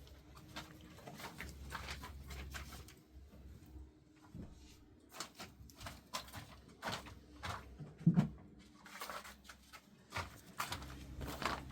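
Irregular rustling and scraping strokes, a few a second, with one louder thump about eight seconds in.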